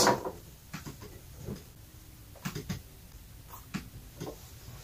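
Laptop keyboard and touchpad being tapped: a handful of short, soft clicks at irregular intervals.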